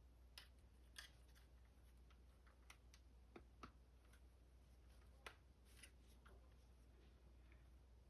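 Near silence with faint, scattered clicks and ticks of a plastic Transformers action figure being handled and its parts pegged into place, about half a dozen over the stretch.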